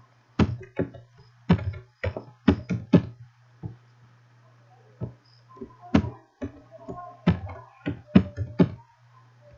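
Computer keyboard keys being typed in quick, irregular runs of sharp clicks, as a password is entered and then entered again to confirm it. A low steady hum runs underneath.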